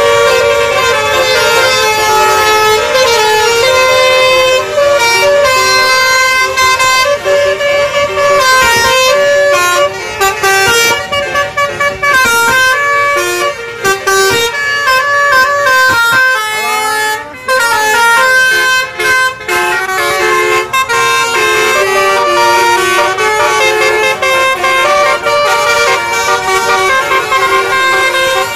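Bus 'basuri' musical telolet horns playing a continuous, loud melody of stepped notes, with a short swooping glide about two-thirds of the way through.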